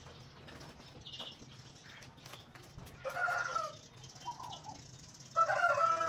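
A chicken calling twice: two short calls, one about three seconds in and a louder one near the end.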